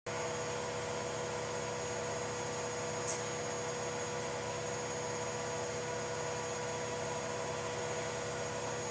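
Steady hiss with a constant hum tone: room tone with nothing happening, and one faint tick about three seconds in.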